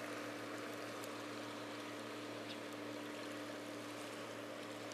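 Quiet harbour ambience: a steady low hum over a faint, even wash of water and air.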